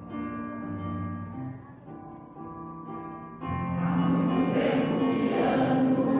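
Piano playing sustained chords, then a choir comes in singing with it about three and a half seconds in, much louder.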